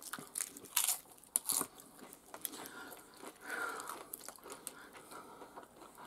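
Crisp nacho chips crunching as they are bitten and chewed, with several sharp cracks in the first second and a half and quieter chewing after.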